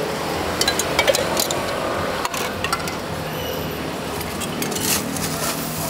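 Metal ladle clinking against glass syrup jars and a cup of crushed ice as syrup is scooped and poured, a handful of light clinks, most in the first three seconds, over steady background noise.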